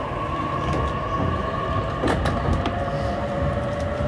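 Running noise of an E233-3000 series electric train, with a steady whine from the traction motors and inverter at two pitches over the low rumble of wheels on the rails. A few short, sharp clicks come about two seconds in.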